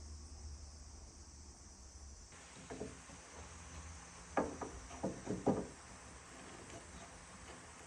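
A handful of short knocks in a woodworking shop, bunched about halfway through, over a steady high insect-like hiss.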